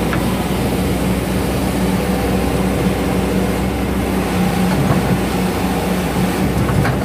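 Hydraulic excavator's diesel engine running steadily with a constant low hum while the machine works, loading fill soil into a dump truck.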